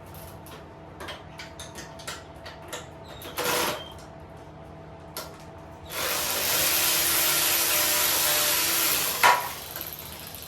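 A handheld power tool runs steadily for about three seconds, starting about six seconds in and stopping with a sharp click. Before it, light clicks and clinks of parts and tools being handled.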